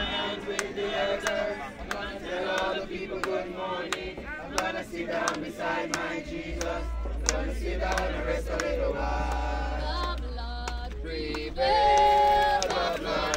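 A group of voices singing a hymn together, with sharp claps or beats keeping time; the singing swells to its loudest held notes near the end. A low steady rumble comes in about six seconds in.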